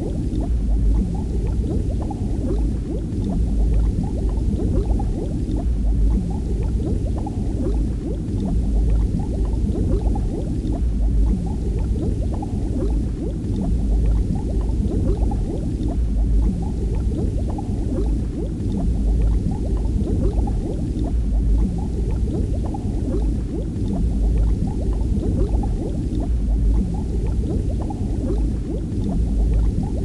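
Underwater ambience: steady low bubbling and gurgling of water over a deep rumble, unchanging throughout.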